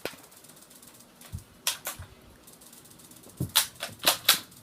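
Sharp clicks and snaps of a toy airsoft gun being worked and fired: a pair about two seconds in, then a quicker run of four near the end.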